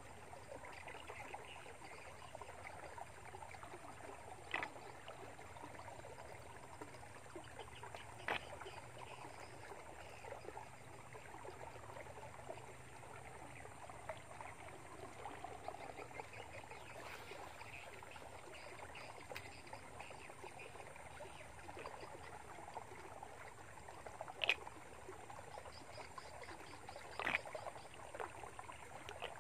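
Faint, steady outdoor ambience with no voices, broken by four sharp clicks spread through it.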